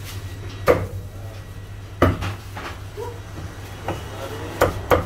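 Meat cleaver chopping a roast Peking duck on a thick round wooden chopping block: about six sharp, irregularly spaced chops. The loudest come about one and two seconds in, and a quick pair falls near the end.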